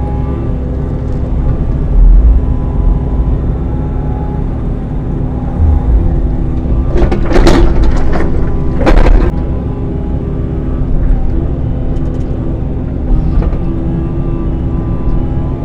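Midsize excavator's diesel engine running steadily under load while digging, with two short, loud clattering bursts about halfway through, typical of the bucket working through dirt and rock.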